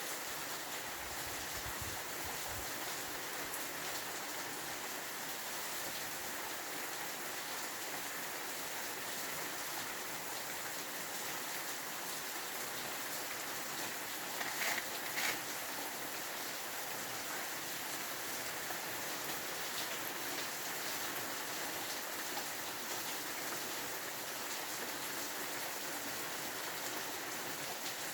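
Steady rain falling in an even hiss, with two brief louder spatters about halfway through.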